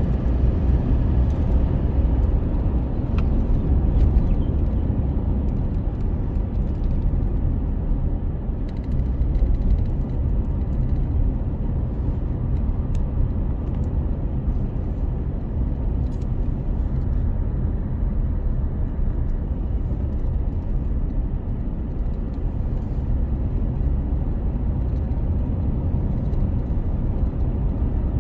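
A vehicle running with a steady low rumble, with a few faint clicks now and then.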